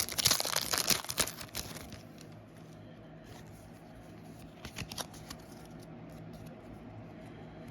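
Foil booster pack wrapper crinkling and tearing open for about two seconds. Then it goes quieter, with a few brief soft handling sounds.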